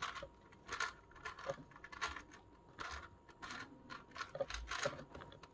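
Crazy 3x3x3 Mercury plastic puzzle cube being turned by hand: an irregular run of about a dozen light clicks as its layers rotate.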